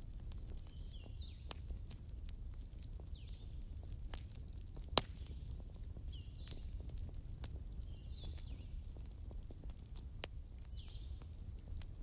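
Campfire embers crackling with scattered sharp pops, the loudest about five seconds in, over a low steady rumble. A short high chirping call repeats about every two seconds behind the fire.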